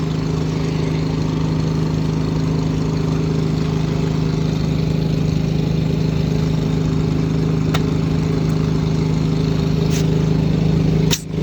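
An engine running steadily at one even speed, a constant drone with no revving. It drops out for a moment just before the end.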